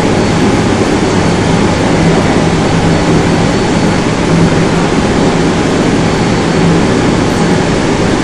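Inside a Korail Class 351000 IGBT electric multiple unit running steadily between stations: a loud, even rumble of wheels on rail with a steady low hum.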